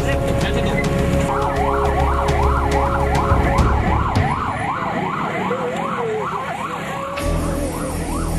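Ambulance siren sounding a fast rising-and-falling yelp, about three sweeps a second. It stops about seven seconds in.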